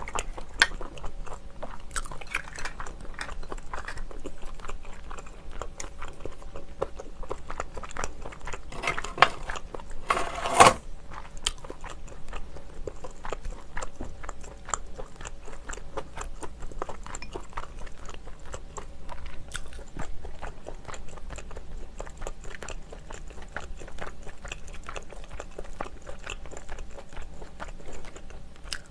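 Close-miked chewing of steamed clam meat: steady wet chewing and small mouth clicks, with a louder, noisier bite or slurp about ten seconds in.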